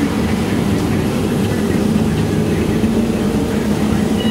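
Volvo bus engine and drivetrain running as the bus travels along, heard from inside the passenger cabin: a steady low drone with road noise.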